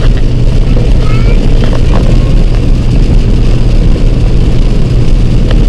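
Pickup truck driving through a heavy rainstorm, heard from inside the cab: a loud, steady low drone of engine and road noise under an even hiss of rain and wind.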